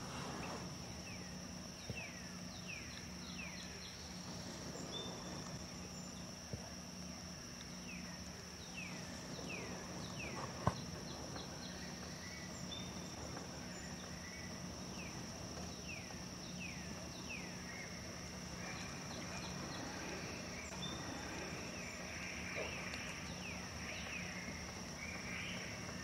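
Outdoor natural ambience: a steady high-pitched insect drone, with songbirds giving series of short, falling call notes and quick note clusters throughout. A faint low hum runs underneath, and a single sharp click sounds near the middle.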